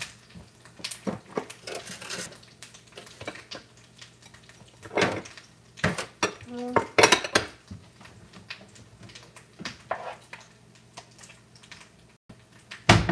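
Bowls and dishes being taken out and handled: scattered clinks and knocks of crockery, a few of them sharper, over a faint steady hum.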